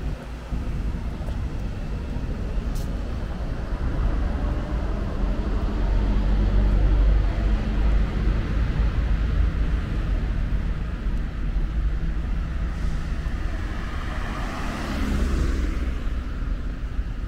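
Street traffic ambience: a steady low rumble, with a car passing close by about fifteen seconds in, its noise swelling and then fading.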